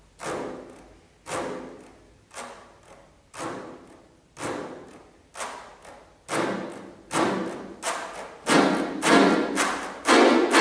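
Accordion played in short, sharp accented strokes, each dying away in the room. They come about once a second, then quicken to about two a second and grow louder toward the end.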